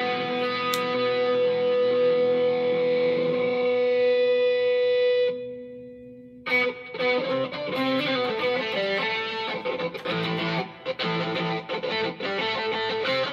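Distorted Schecter Diamond Series electric guitar holding a single note for about five seconds without dying away, the string kept ringing by its Sustainiac sustainer. The note cuts off, and about a second later a run of quick picked notes and short riffs follows.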